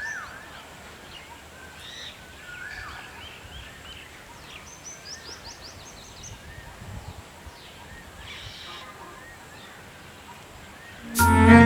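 Faint mixed chorus of small birds chirping and calling over a steady outdoor hiss, including a quick run of short high sweeping notes around the middle. Near the end, loud music starts abruptly.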